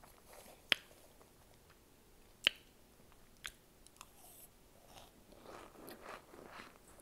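Someone biting and chewing microwaved cornstarch chunks, with a few sharp clicks of teeth biting through, two of them loud, then softer chewing and rustling near the end. The chunks are still warm and not yet hard, so they squeak rather than crunch.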